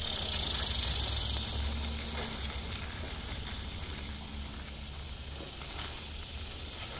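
Beans simmering and sizzling in a metal pan over a portable butane stove, a steady hiss that is loudest in the first two seconds. A few light clicks near the end as a plastic fork stirs the pan.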